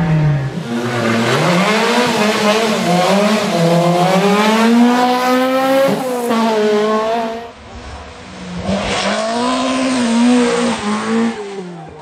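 Rally car engines at full throttle, the engine note climbing through the revs and dropping at gear changes. There is an abrupt change about six seconds in and a brief lull a little later before another car's engine comes in.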